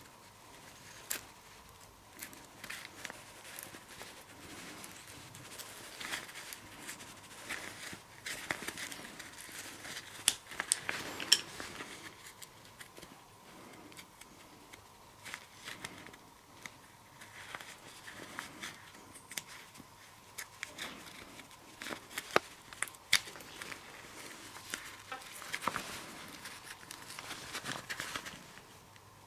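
Hands in rubber gloves handling the small metal and rubber parts of an ATE brake master cylinder on a cloth-covered bench: scattered light clicks and clinks, with rustling of glove and cloth in between. The sharpest clicks come about ten seconds in and again about twenty-two seconds in.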